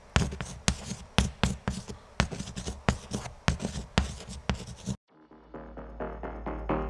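Scribbling sound effect: quick scratchy writing strokes, a few a second. About five seconds in it stops suddenly, and electronic music rises with a deep steady bass and a regular beat.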